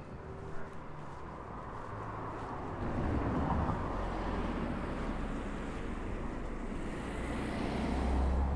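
A car driving past on the street, a rumbling noise that builds over several seconds and is loudest near the end.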